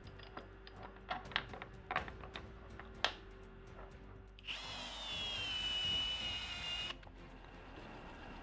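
A few light clicks and knocks, then a high whine from the milling machine's drill cutting a hole for a tool-clamping screw. The whine lasts about two and a half seconds from about halfway through, settles to a steady pitch, and cuts off suddenly.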